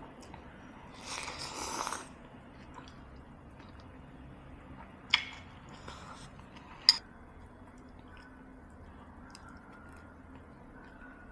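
Someone eating soup: quiet chewing, a short noisy burst about a second in, and two sharp clinks of a spoon against the bowl about a second and a half apart midway through.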